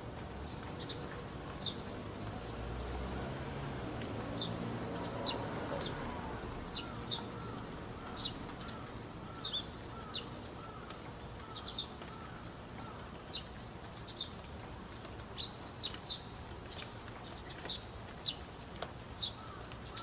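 Outdoor birdsong ambience: many short high chirps scattered throughout, and a steady run of lower repeated notes, about two a second, in the middle and again near the end. A low rumble swells and fades in the first few seconds.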